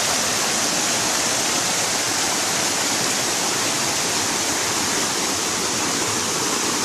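Water of a mountain valley stream rushing steadily in an even, unbroken roar.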